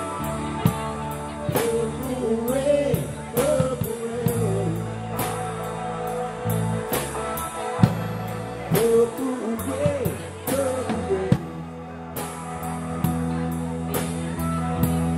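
Live rock band playing: a drum kit keeps a steady cymbal beat of about three ticks a second under electric guitars, with a melody line that bends and slides in pitch twice.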